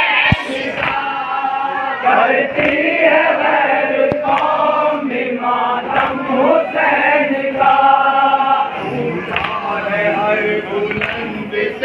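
A crowd of men chanting a noha, a Shia mourning lament, together in unison, their voices held in long sung lines.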